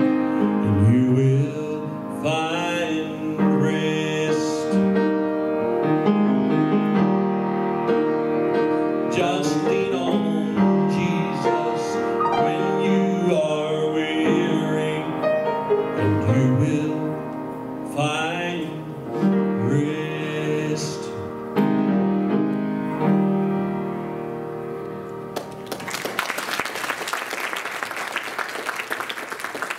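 Singing with piano accompaniment. The song ends about 26 seconds in, and the congregation applauds.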